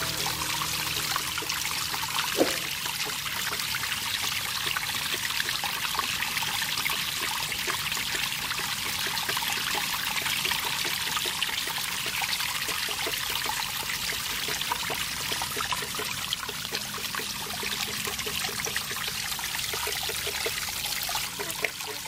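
Muddy water pouring from two pipes onto the paddles of a small homemade water wheel and splashing into a shallow pool below, a steady rushing splatter, with one short knock about two seconds in.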